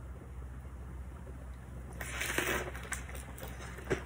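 Fresh lettuce leaves rustling and crinkling briefly about halfway through as a fried spring roll is wrapped in them by hand, with a small click near the end.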